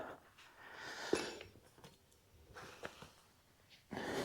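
Light handling noises from the thumb's mounting pin and spacers being worked, with a sharp click about a second in and a fainter one near three seconds, among low rustling.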